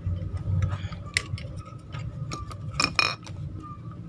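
Light clicks and taps of a hand tool and fingers working at a TV circuit board as a diode is pulled out, the loudest cluster of clicks about three seconds in, over a steady low hum.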